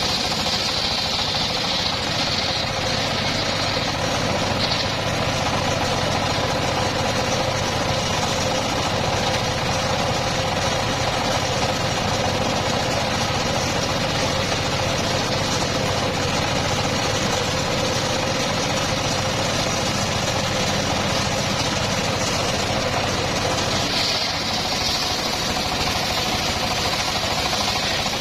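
The engine of a homemade circular-saw sawmill rig running steadily with a knocking engine note.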